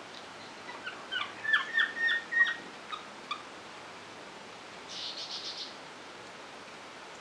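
A series of about a dozen short, high, falling chirps over two and a half seconds, followed about five seconds in by a quick run of about six higher-pitched chirps, over a steady background hiss.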